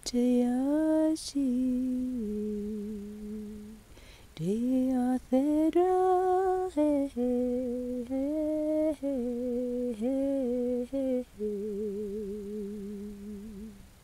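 A person humming a slow wordless melody: long held notes joined by upward slides, a short break partway through, and a last long note with a wavering vibrato that fades out near the end.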